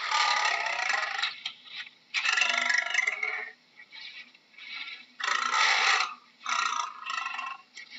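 Lion growling in a series of rough bursts, each up to about a second and a half long, with short breaks between them.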